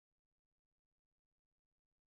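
Silence.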